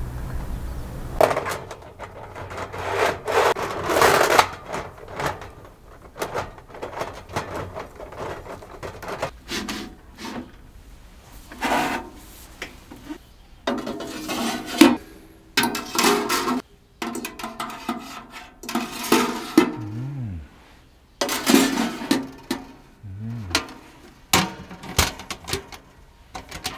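Hands working with hard objects: irregular rubbing and scraping with short sharp knocks and clatters.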